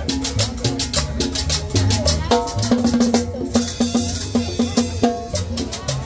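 Latin dance music with a drum kit, bass notes and fast, even percussion strokes about eight a second. About three and a half seconds in the fast strokes break off and a cymbal rings for about a second and a half before the beat picks up again.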